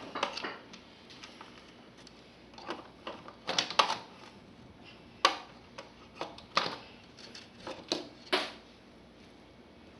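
Irregular sharp clicks and clatters of hard plastic and metal parts being handled and pried apart as a radio is taken apart for scrap, stopping for the last second or so.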